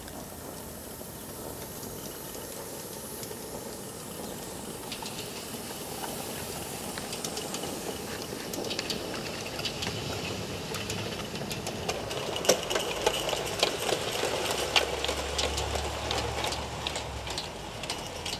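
Live-steam garden-railway locomotive running past with its train: a steady steam hiss and rapid clicking of small wheels over the rail joints. It grows louder as the train comes closer and is loudest in the second half.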